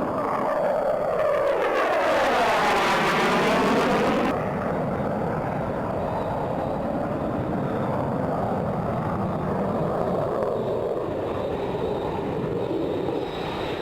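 Jet noise of a McDonnell Douglas F-4 Phantom II's twin J79 turbojets passing by, with a sweeping whoosh that swells for a couple of seconds, peaks, then drops off suddenly about four seconds in. After that comes a steady jet roar.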